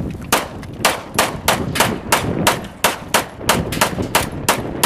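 A rapid series of sharp bangs, about three a second, loud and slightly uneven in spacing.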